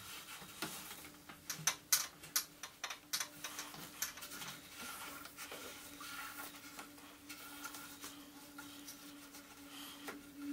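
Hand ratchet being worked in short strokes: irregular clusters of sharp metallic clicks, busiest in the first few seconds, as a heavy metal frame is let down a little at a time. A faint steady hum runs underneath from about a second in.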